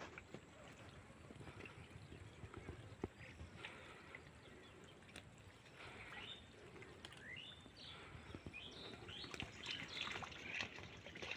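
Faint bird calls: short, quick rising chirps, several of them in the second half, over a quiet open-air background.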